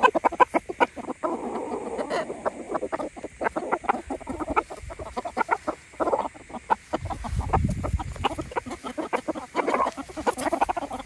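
Chickens clucking as they forage, with many short calls throughout. A low rumble comes in about seven seconds in.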